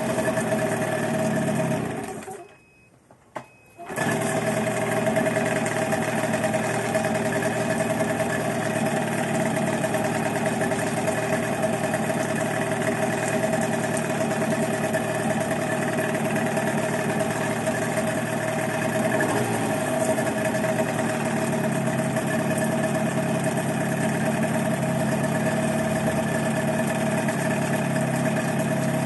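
15 hp outboard motor running steadily on a test run. It cuts out for about a second and a half near the start, then comes back abruptly and runs on at an even speed.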